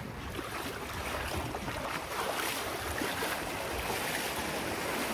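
Sea water splashing around legs wading through the shallows, growing a little louder about two seconds in.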